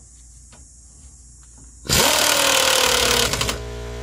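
Pneumatic wrench running in one burst of about a second and a half, with a slightly falling whine, as it drives in the brake caliper mounting bolts. Just after it stops, a steady motor hum starts up.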